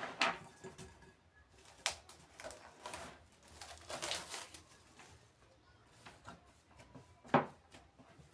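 Scattered sharp knocks and a brief rustle of things being handled in a kitchen, the loudest knock near the end.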